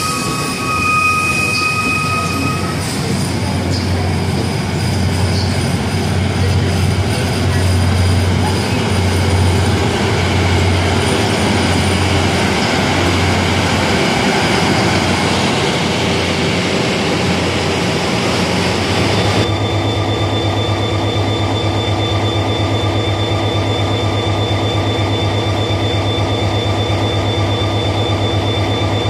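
Mugunghwa-ho passenger train rolling along the platform, with a brief wheel squeal at the start. About two-thirds of the way in the rolling noise stops suddenly and a steady drone remains: the diesel locomotive and generator car idling as the train stands in the station.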